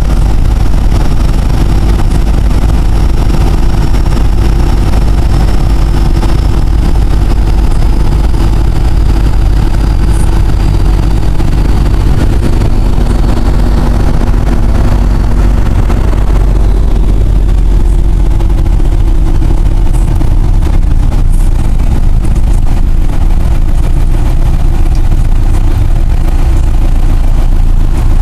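Cummins 4BT four-cylinder turbo-diesel running under way, heard from inside the cab of a 1971 Dodge pickup, loud and distorted by the recording. A high turbocharger whistle sits over the engine, slowly falling in pitch and fading out a little past halfway.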